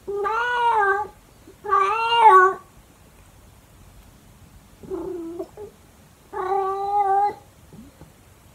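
Senior calico cat with a thyroid condition howling: four loud, drawn-out yowls of about a second each, the third shorter and fainter.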